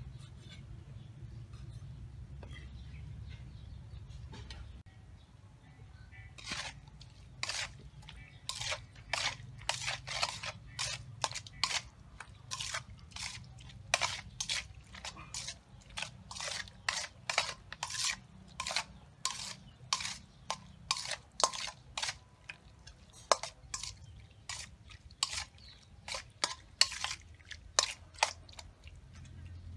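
Sliced pig intestine being mixed with seasoning by hand in a stainless steel bowl: sharp wet slaps and clicks against the metal, about two a second and irregular, starting a few seconds in.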